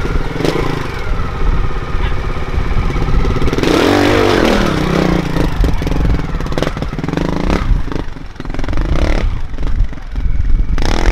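Trials motorcycle engine blipped and revved hard as the bike climbs over rock steps, with a loud surge about four seconds in and sharp knocks of the tyres and bike striking rock.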